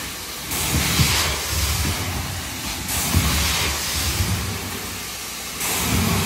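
Carpet-cleaning extraction wand rinsing a linoleum floor: a loud, steady hiss of spray and suction over a low rumble. The hiss swells and eases with each pass, changing about half a second in, near three seconds, and again near five and a half.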